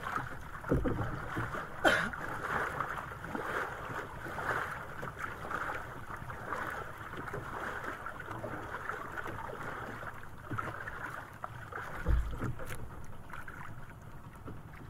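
Sea water lapping and splashing against a small outrigger boat's hull, a steady wash of noise, with a few knocks against the boat, the loudest about a second in and again near the end.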